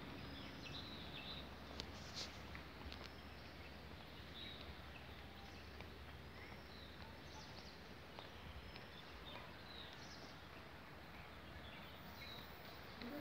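Faint outdoor background noise with scattered short bird chirps and a few small clicks.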